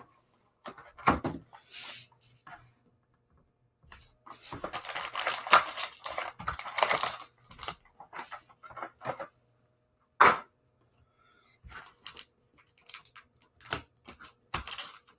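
Plastic shrink wrap being torn and crinkled off a cardboard trading-card hobby box, densest from about four to seven and a half seconds in. Then the box is opened and foil card packs rustle as they are handled, with a single sharp tap about ten seconds in.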